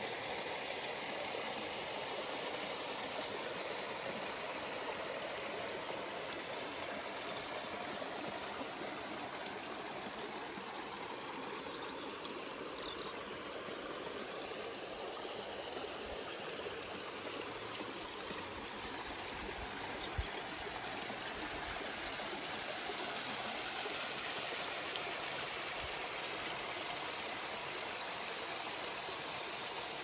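Small waterfall and stream rushing steadily, an even hiss of running water. A few low bumps come in the second half, one sharper about two-thirds of the way through.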